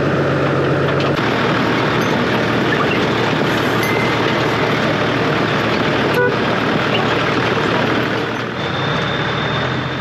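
Toyota Land Cruiser 80 Series driving along a dirt track, a steady loud rush of engine, tyre and wind noise picked up by a camera mounted on the outside of the vehicle.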